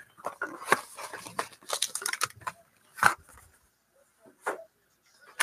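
A cardboard trading-card box being handled and its foil-wrapped pack taken out by hand: a quick run of small rustles and clicks, then two single sharp taps later on.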